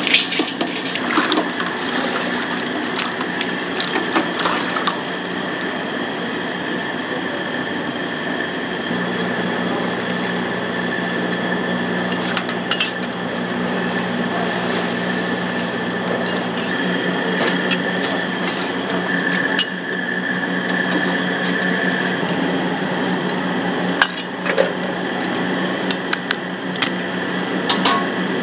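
Long metal utensil stirring fried pork-fat cracklings in a steel stockpot of hot lard: a wet churning with scattered clinks against the pot. A steady machine hum and a high whine run underneath, and the hum grows stronger about nine seconds in.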